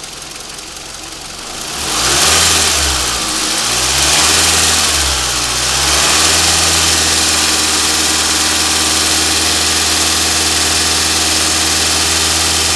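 Toyota 2AZ-FE 2.4-litre four-cylinder engine of a 2006 Highlander running warm at idle, then revved up and down a few times about two seconds in before being held at a raised, steady speed.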